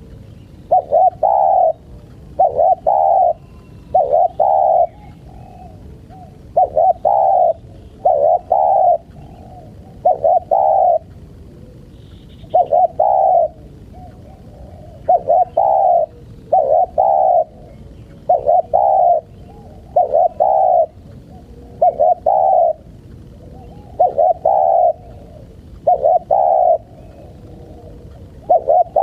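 Spotted dove (tekukur) cooing: short phrases of two or three coo notes, repeated about every two seconds.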